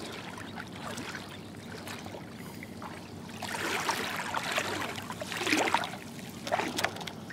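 River water sloshing and splashing around the legs of a person wading, in irregular louder surges from about halfway through.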